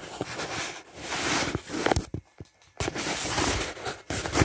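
Rustling, scraping and sharp clicks of a handheld phone camera being handled and moved around, in stretches broken by short pauses.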